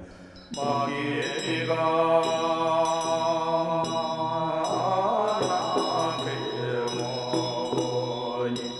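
Buddhist-style chanting: a deep droning chant held on long, steady pitches, starting about half a second in.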